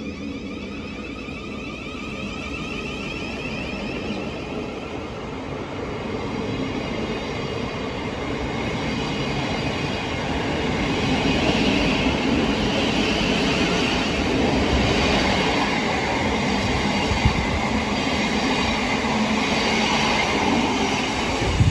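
Southeastern Class 707 electric multiple unit, a twelve-car pair, pulling away from the platform and running past close by. A whine from its electric traction motors is heard over the first few seconds, and the wheel-on-rail rumble grows louder over about twelve seconds, then holds steady as the carriages roll past.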